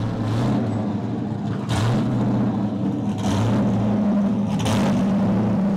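Drift car's engine revving hard under load, its pitch shifting up and down, with surges of noise about every second and a half.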